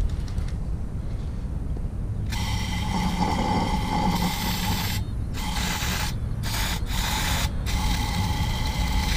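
Blaster penetrating-oil aerosol can spraying into an engine's spark plug holes: a hissing spray starting about two seconds in, one long blast followed by several shorter bursts with brief stops between them. The oil is going into the cylinders to try to free a seized engine.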